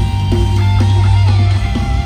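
Heavy metal band playing loud and live: distorted electric guitars repeat a riff of sliding notes over a sustained bass note and drums.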